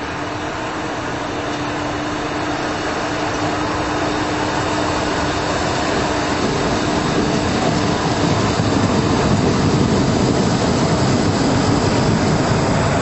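620 Class diesel railcar set pulling away from the station and driving past, its diesel engine note and the rumble of its wheels growing steadily louder as it comes closer.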